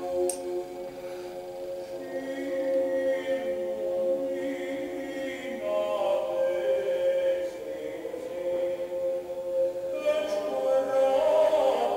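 Background music: a choir chanting, with one note held steadily beneath the moving voices.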